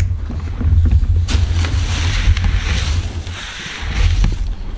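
Wind buffeting the microphone: a heavy, uneven low rumble with a rushing hiss over it.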